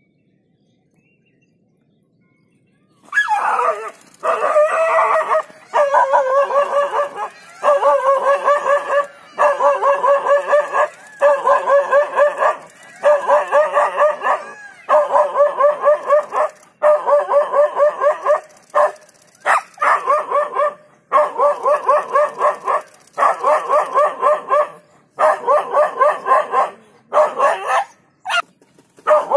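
Dog barking in rapid runs of high, yelping barks, one run about every second and a half, starting about three seconds in.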